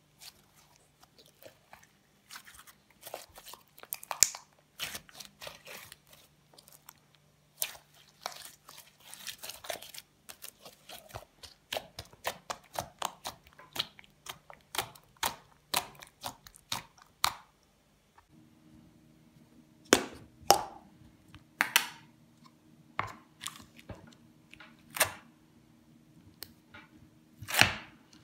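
Slime being worked, making a quick run of small crackles and crunches. After a cut these give way to sparser, louder snaps and pops.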